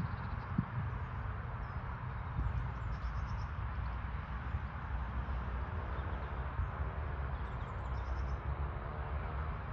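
A steady low rumble with a hiss, and small birds chirping faintly now and then.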